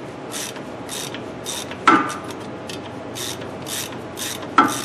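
Hand ratchet backing out a front brake caliper bracket bolt, its pawl rasping in even strokes about two to three times a second. There is a sharp metallic clank about two seconds in and another near the end.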